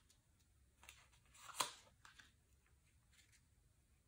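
Faint rustle and tap of tarot cards being drawn from the deck and laid down, a few soft strokes with the clearest about one and a half seconds in.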